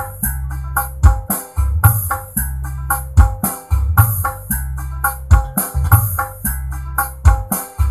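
A dangdut song playing loudly through a Polytron active speaker fed from a mixer, with a heavy bass line under a steady drum beat and a melody on top.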